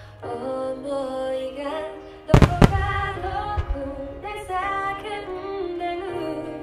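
Music with a singer playing alongside a starmine fireworks barrage; about two and a half seconds in, two loud aerial shell bursts crack close together, with a few fainter bangs after.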